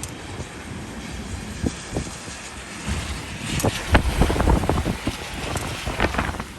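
Storm wind gusting and buffeting the microphone in a sudden snow squall, growing stronger about three seconds in.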